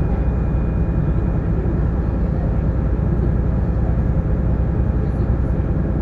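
Steady low rumble of a sightseeing boat's engine, heard on board while under way.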